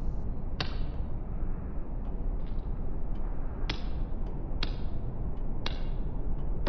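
Four sharp snapping clicks at uneven intervals, with a few fainter ones between, each trailing off in a short high hiss, over a steady low rumble.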